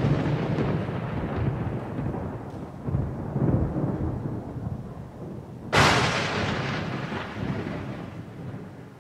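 Thunder sound effect: a long rolling rumble, then a sharper crack about six seconds in that rumbles away.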